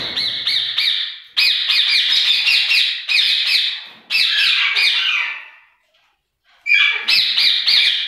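Parakeets screeching: rapid runs of harsh, high calls at about five a second, in four bouts with short pauses between them.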